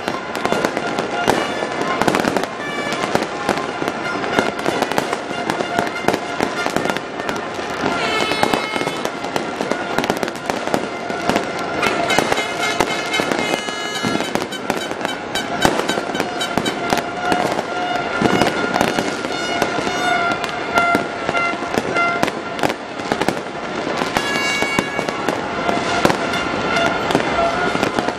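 Aerial fireworks going off continuously: many rapid, overlapping bangs and pops, with steady tones from music running underneath.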